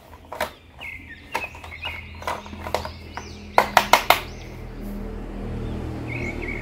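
Plastic clicks and taps from a battery-operated light-up Hulk toy being handled, with a quick run of four louder clicks about three and a half seconds in. A low hum builds toward the end.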